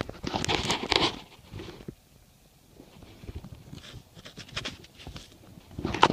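Rustling and scraping of car floor carpet and interior trim being pulled up and handled: a burst of about a second near the start, quieter scraping after about four seconds, and a louder rustle at the end.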